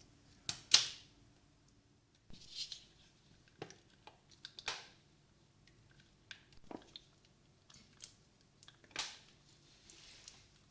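Irregular small clicks, taps and brief crackling scrapes from close handling of objects, the loudest just under a second in.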